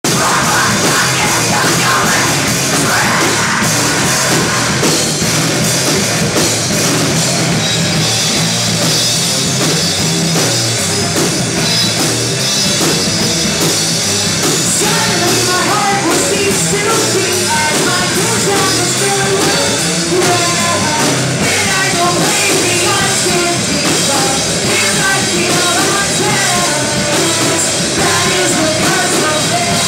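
Live heavy metal band playing loud and steady, with distorted guitars, bass and a drum kit; vocals join about halfway through.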